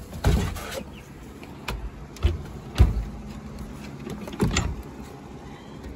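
A few short, dull knocks and bumps, about four in all, the loudest near the middle, over a low background noise.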